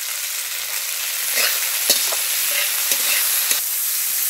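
Chopped vegetables sizzling in hot oil in a metal kadai, stirred with a metal spatula. The spatula scrapes and clicks against the pan several times over a steady sizzle.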